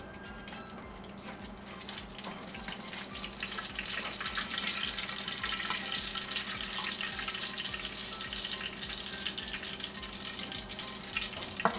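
Fish frying in hot oil in a wok: a steady crackling sizzle that grows louder a few seconds in as the pieces are turned and lifted out with a metal spatula. One sharp knock near the end.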